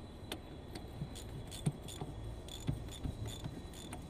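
Faint, irregular metallic clicks of a socket ratchet wrench turning a jacking bolt to push the engine damper out of a Komatsu D375 bulldozer's flywheel housing.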